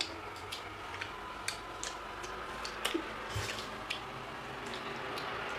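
Irregular soft clicks and wet smacks of people chewing orange segments, a few per second, over a faint steady room hum.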